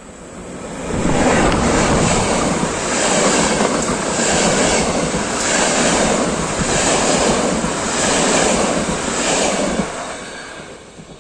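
An intercity passenger train hauled by a Siemens/Krauss-Maffei electric locomotive passes close by. It arrives loud about a second in, and the wheels on the rails make a rushing noise that swells and dips in a regular rhythm as the coaches go by. The noise fades near the end as the last coach moves away.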